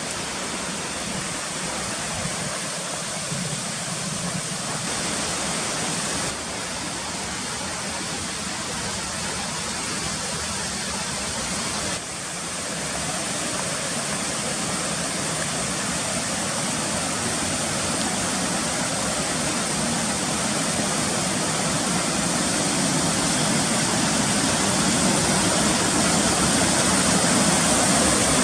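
Steady rushing of mountain water in a gorge. It changes level abruptly twice and grows gradually louder toward the end.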